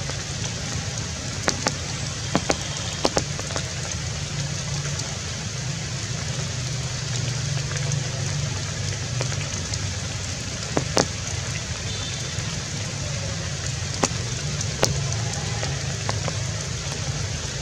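Steady outdoor background hiss with a low rumble underneath, broken by a few scattered sharp clicks and snaps.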